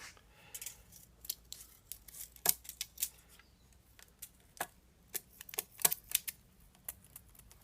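Irregular sharp metallic clicks and taps from the parts of a low angle block plane being handled, adjusted and set down, about a dozen of them, the loudest around two and a half, three and six seconds in.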